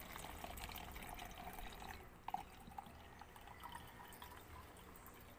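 Water poured in a thin stream from a mug into a plastic jar, trickling and dripping. It is fullest in the first two seconds, with a light tap about two seconds in, then thins to a few drips.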